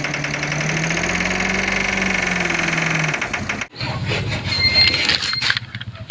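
Toy dump truck giving a steady, engine-like mechanical hum for about three seconds, which then cuts off; clicks and a few short high beeps follow.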